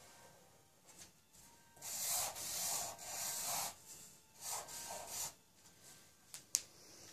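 Marker pen drawing on paper: a few long rubbing strokes, the loudest from about two to three and a half seconds in, then shorter ones, and a sharp click near the end.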